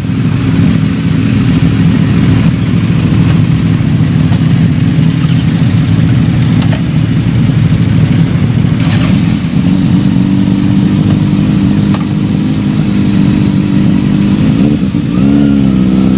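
Several sportbike engines idling together in a steady, loud drone, the nearest a Kawasaki Ninja. The engine note lifts slightly about two-thirds of the way in, and near the end rises to a higher held pitch as the revs come up.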